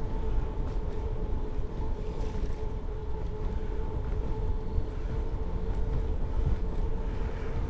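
Riding noise from a road bike on a paved trail: a steady low rumble of wind on the microphone and tyres rolling, with a faint steady hum held at one pitch throughout.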